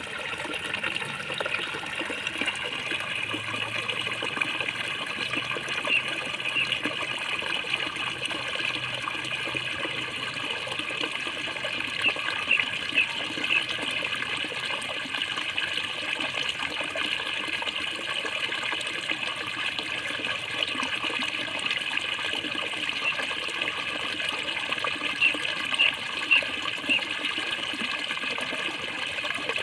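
Water gurgling steadily and continuously, with a few brief louder spurts about twelve seconds in and again near the end.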